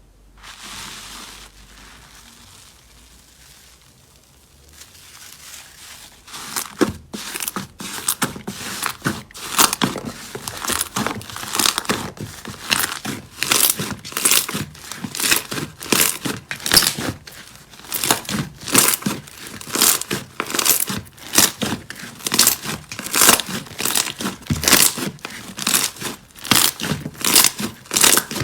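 Slime being squeezed and pressed by hand, giving off sharp crackling pops in a steady rhythm of about two a second. The first few seconds are quieter, with only a soft hiss.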